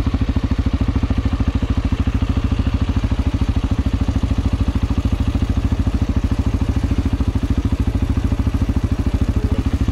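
Quad bike (ATV) engine running under way at a steady speed, heard from on board: a fast, even throb that does not rise or fall.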